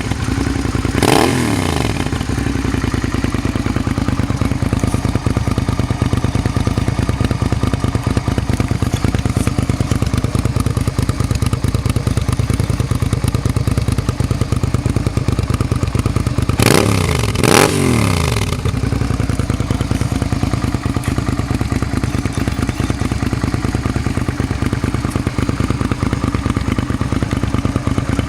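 2001 Suzuki SV650's 90-degree V-twin idling steadily through a new exhaust. The throttle is blipped once about a second in and twice in quick succession a little past the middle, the revs jumping up and dropping straight back to idle.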